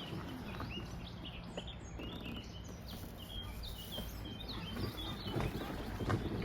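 A small songbird singing a quick run of short, high chirping notes for about four seconds, stopping past the middle, over a steady low background rumble.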